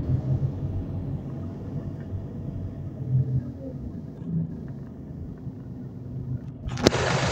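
Scania OmniCity bus on the move, heard from inside the passenger saloon: a steady low engine and road rumble. About seven seconds in there is a sharp click, then a louder hiss.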